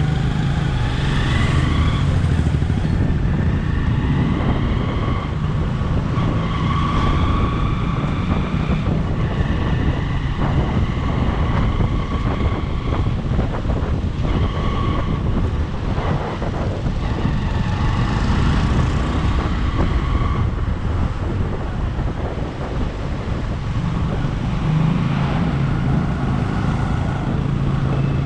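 Motorcycle engine running steadily on the move, with wind rushing over the microphone. Higher steady tones come and go in stretches of a second or two.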